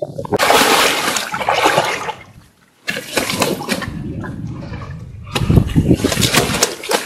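Water splashing and sloshing in two spells, the second and loudest about five to six seconds in: a big carp of about 22.5 kg thrashing in an inflatable floating cradle in shallow water.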